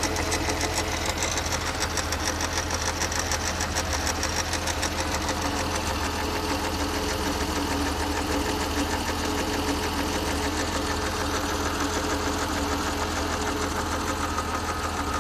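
Car engine and gearbox running with a fast, even knocking: knocks that the owner puts down to the gearbox.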